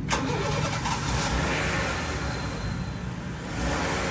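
Pressure washer running: a steady hiss of high-pressure water spray over the low hum of the machine's motor.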